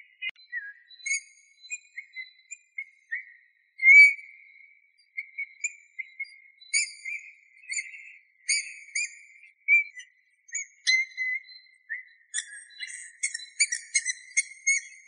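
Eurasian bullfinch singing: a halting string of short whistled notes at much the same pitch, mixed with thin higher squeaky notes that come thicker near the end.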